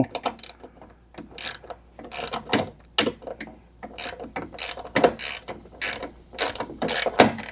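Hand ratchet wrench clicking in short back-and-forth strokes, about two clicking bursts a second, as a bolt on the door check bracket is worked.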